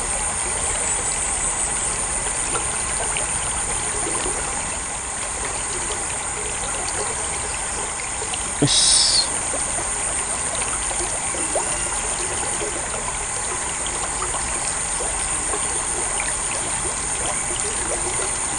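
Water running steadily through a roadside culvert, a constant trickling rush. A brief high-pitched chirp sounds about halfway through.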